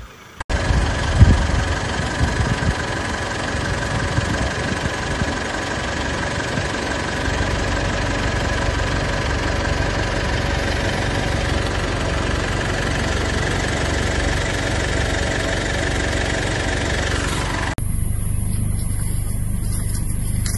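Vehicle engine idling steadily, with a few knocks in the first seconds; the sound changes abruptly near the end.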